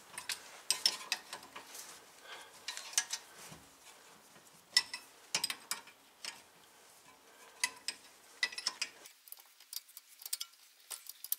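Wrenches clicking and clinking on a rear brake caliper as the caliper bolt is tightened while its slide pin is held with a 17 mm wrench: scattered metal clicks in short runs, thinning out near the end.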